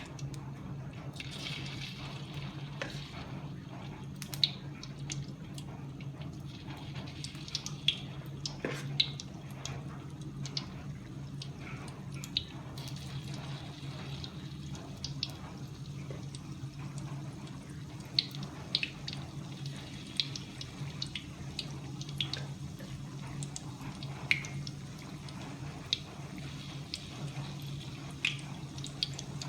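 Water dripping in irregular single drops over a steady low hum.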